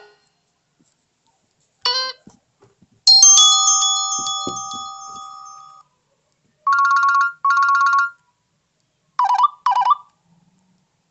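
Short Nokia 300 phone alert tones played one after another with silent gaps: a brief chime, then a bright bell-like tone that rings out and fades over about three seconds, then two identical two-note beeps, then two quick warbling blips.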